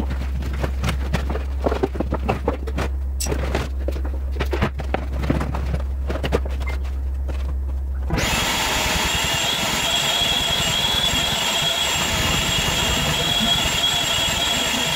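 Knocks and rustles of work inside a stripped car cabin, over a steady low hum. About eight seconds in, this gives way abruptly to a vacuum cleaner running steadily with a whine.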